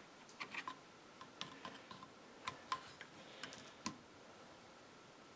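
Faint, irregular clicks and taps of a screwdriver tip against the plastic housing and carburetor parts of a Husqvarna Rancher 455 chainsaw. They die away about four seconds in.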